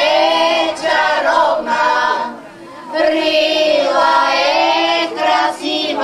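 Women's choir singing a Bulgarian song. Two sung phrases, with a short pause for breath in the middle.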